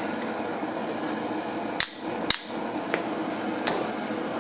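A few sharp metal clicks from tools working at a blowtorch-heated laminated padlock, the first about two seconds in and the rest spread over the next two seconds, over a steady background noise.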